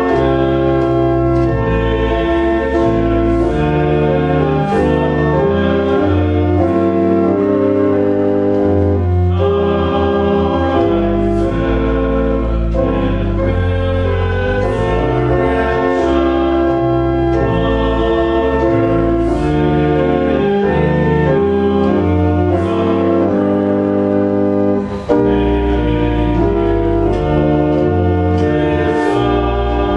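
Church organ playing a hymn in slow, held chords that change every second or two, with a brief dip in level a little before the end.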